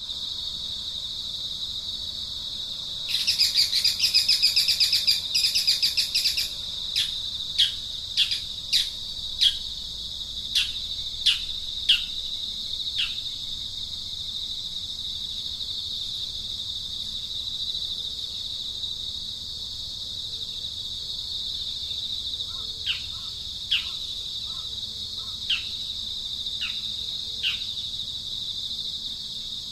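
A steady, high-pitched insect drone with a bird calling over it: a loud buzzy chatter about three seconds in, then a string of short, sharp downward-sweeping notes about one a second. A fainter run of the same notes comes near the end.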